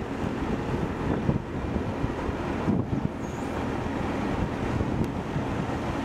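Ultra Heavy-Lift Amphibious Connector prototype running as it crawls and turns on its pad-covered tracks, a steady low rumble with wind buffeting the microphone.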